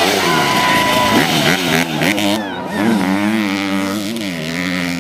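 Dirt bike engines revving and shifting as the bikes ride past, their pitch climbing and dropping again and again.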